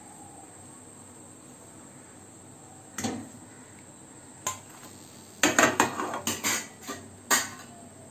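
Steel spatula knocking and clinking against a metal kadai and a steel plate as a deep-fried pastry is lifted out of the oil and set down: one knock about three seconds in, another about a second and a half later, then a quick run of clinks over the last few seconds.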